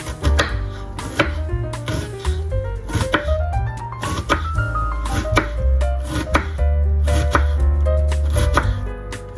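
Background music with a bass line, a melody that climbs in pitch around the middle, and a steady beat of sharp knocks.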